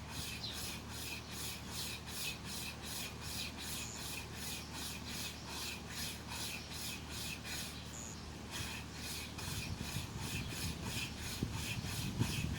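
Braided-wire survival saw rasping through a fallen tree branch in quick, even back-and-forth strokes, about three a second, with a brief pause a little after eight seconds. Some low bumps come in near the end.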